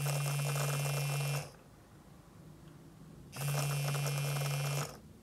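Vibration motor inside a Balista Tremor swimbait lure buzzing while the lure sits in water, switching on and off in a pulse: about a second and a half on, then about two seconds off, twice. Each burst is a steady low hum with a harsh buzz above it.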